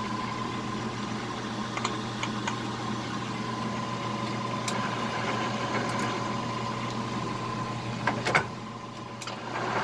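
Cincinnati Hydrashift lathe running in reverse: a steady mechanical hum with a steady high tone over it. A couple of sharp clicks come a little after eight seconds, and the sound drops off briefly.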